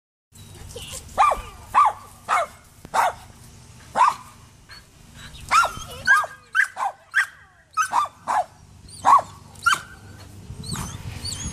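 A poodle barking over and over: short, sharp barks at an irregular pace, about fifteen of them, some coming in quick runs.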